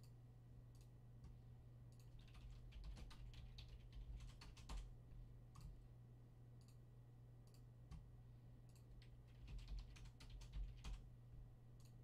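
Typing on a computer keyboard, soft and close: a quick run of keystrokes a few seconds in and another near the end, with occasional single clicks between, over a low steady hum.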